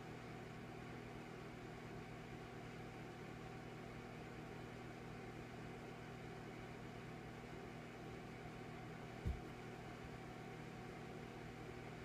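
Electric fireplace humming steadily from its flame-effect motor and fan, a low even drone with a faint hiss. A single low thump about nine seconds in.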